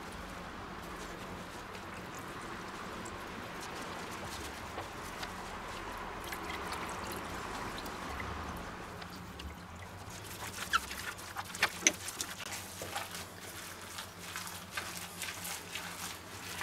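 Liquid dribbling softly and steadily as a soaked bread roll is squeezed out by gloved hands over a jug. From about ten seconds in there are scattered wet clicks of hands working in the raw mince mixture.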